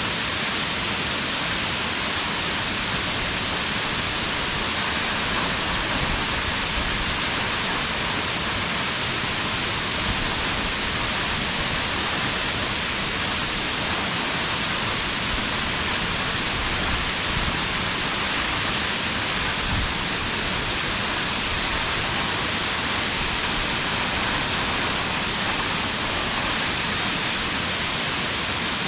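A waterfall's steady, even roar of falling water.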